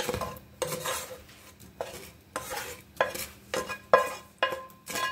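Browned chicken pieces being scraped and knocked out of a metal frying pan into a saucepan of white sauce. Sharp scrapes and knocks come roughly twice a second, a few with a short metallic ring.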